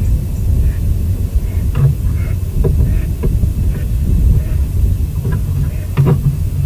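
A loud, steady low rumble on a nest-camera microphone, with a few short sharp sounds over it, the strongest about six seconds in.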